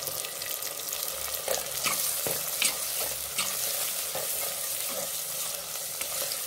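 Chopped tomatoes and onions sizzling in hot oil in a clay pot, stirred with a metal spoon that scrapes and knocks against the pot every second or so.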